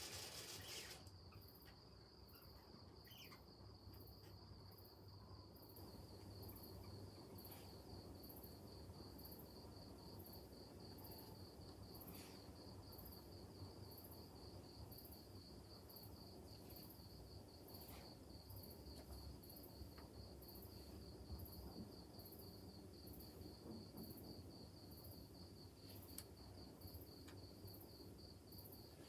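Faint, high-pitched insect chirping, pulsing steadily and evenly throughout, over a low hum; otherwise near silence.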